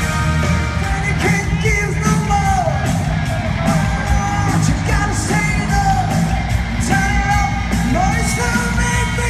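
Live rock band playing loud in an arena: lead vocals over drums and electric guitar, heard from the audience.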